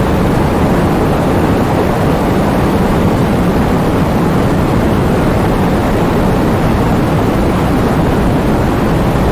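Heavy rain falling: a dense, steady rush of noise with no separate drops heard, heaviest in the low range.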